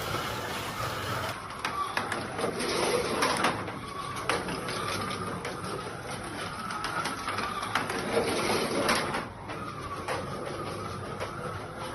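Slot car's small electric motor whining as it laps the track, the pitch rising and falling as it speeds up and slows, with frequent clicks and rattles from the car on the track.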